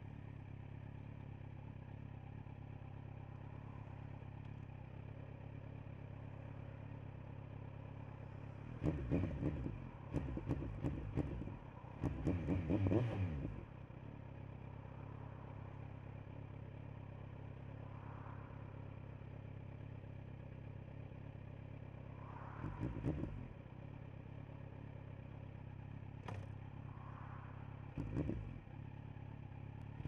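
Kawasaki Z900's inline-four engine idling steadily through a LeoVince LV10 Carbon slip-on exhaust. A few louder, irregular noises break in about a third of the way through, and briefly twice more near the end.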